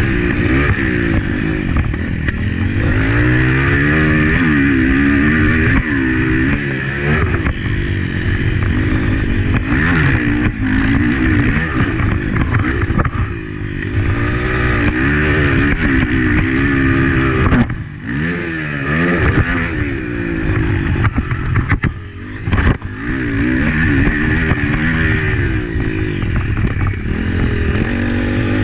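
Honda CRF250F four-stroke single-cylinder motocross bike heard from on board at race pace, its engine pitch climbing and falling over and over as the throttle is opened and shut through the corners and straights, over a steady wash of wind and track noise. Twice, about two-thirds through, the engine drops away briefly when the throttle is closed.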